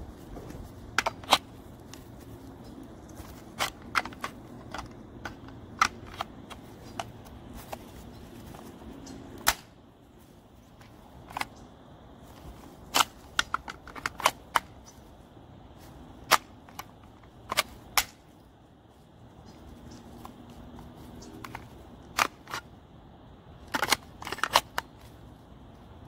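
Sharp, irregular plastic clicks and knocks as a Milwaukee M18 battery and a red plastic battery adapter are handled and slid together, with a quick run of clicks near the end. A low steady hum runs underneath for the first third and again briefly later.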